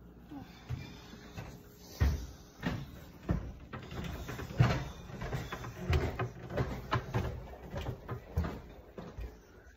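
Footsteps climbing a flight of stairs: a steady run of thumps about one and a half a second, starting about two seconds in.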